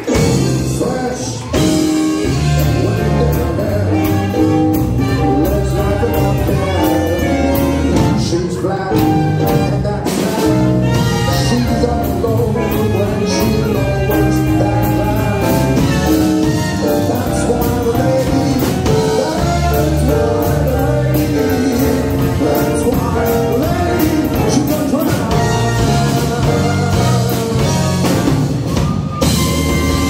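Live big band playing a swing number: horn section of saxophones and trombone over upright bass and drums, running continuously at full volume.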